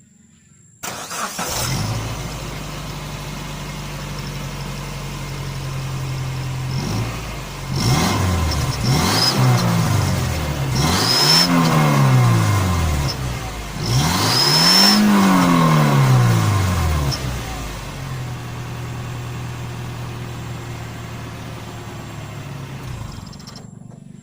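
Suzuki Mega Carry pickup engine idling, then revved several times, each rev rising and falling in pitch. An exhaust 'turbo' whistle fitted in the tailpipe gives a thin high whistle at the top of the bigger revs, before the engine drops back to idle.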